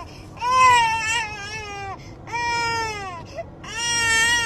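Infant crying in three long wails, each sliding down in pitch as it ends.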